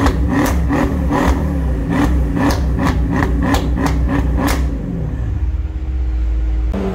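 A car engine revved again and again, about two blips a second, with a sharp crack from the exhaust on each blip. After about four and a half seconds it settles to a steadier run.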